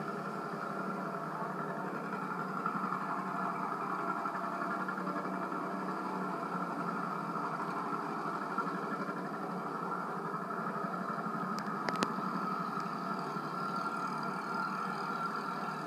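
Vintage farm tractors driving past, their engines running steadily, heard as played back through a television's speaker. A single sharp click about 12 seconds in.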